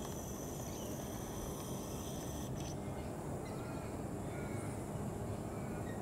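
Steady low background rumble with a few faint short bird chirps in the second half. A thin high whine in the first half stops suddenly about two and a half seconds in.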